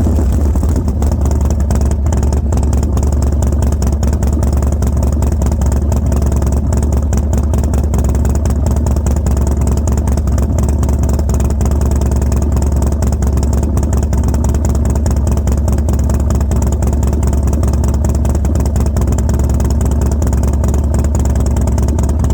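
Harley-Davidson Dyna Street Bob's V-twin, fitted with Fueling 543 Reaper cams and a Bassani Road Rage 2 two-into-one exhaust, idling steadily but roughly with uneven firing. The owner puts the rough idle down to the new cams and tune, the bike backfiring and wanting to die when cold.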